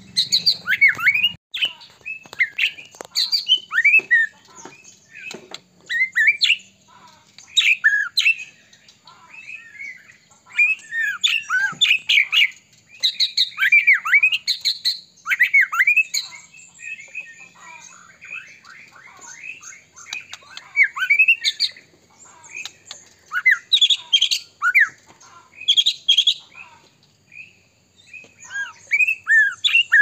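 White-rumped shama (murai batu) singing continuously: rapid, varied phrases of whistled and sweeping notes, delivered in bursts with brief pauses.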